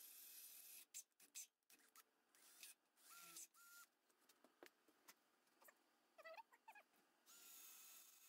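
Near silence: faint hiss with a scattering of faint clicks and small knocks in the middle, from a hand drill being lifted off a steel frame rail and set on the next hole.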